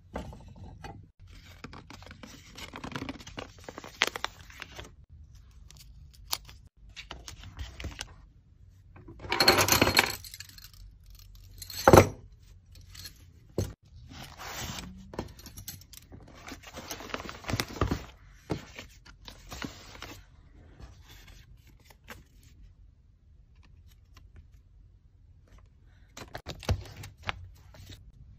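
Order-packing handling sounds: small items clicking and scraping as they are picked from plastic bins, and kraft paper mailers rustling as a hand flips through a stack. A sharp click about twelve seconds in is the loudest sound. Near the end a kraft mailer is sealed.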